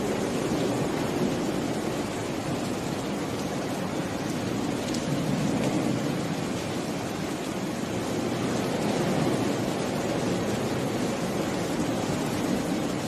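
Rain falling steadily, an even noise with no single drops or events standing out.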